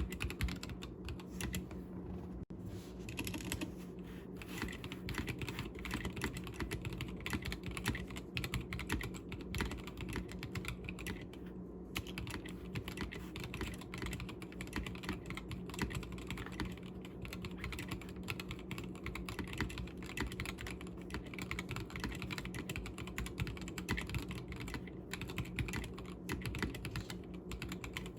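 Continuous rapid typing on an Akko Sakura Jelly 3087 tenkeyless mechanical keyboard, stock with Gateron Pink 43 g linear switches in a stacked acrylic case, keys clacking in a steady stream.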